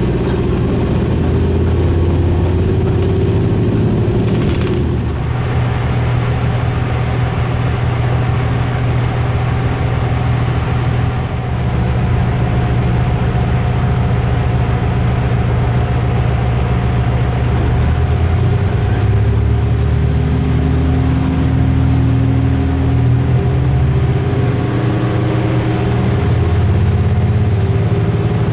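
Diesel railcar running along the line, its engine a steady drone whose note changes about five seconds in.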